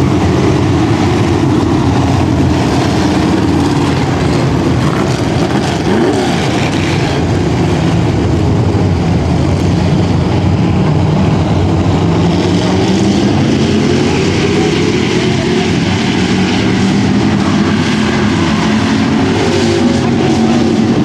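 Several dirt-track bomber-class stock cars racing, engines running hard together in a loud, steady din, with engine pitch sliding up and down as cars pass about six seconds in and again near the end.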